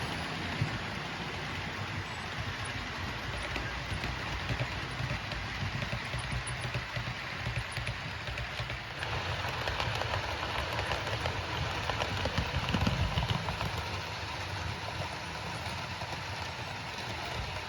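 OO gauge model train hauling Accurascale TPE Mk5 coaches, running round the layout: a continuous rumble and rattle of wheels on track and a running motor, a little louder about 13 seconds in.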